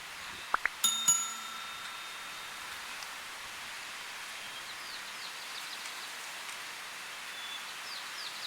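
A single bell-like chime rings about a second in and fades over about a second, just after two quick rising whistles. Short rapid series of high bird chirps sound faintly twice later, over steady outdoor hiss.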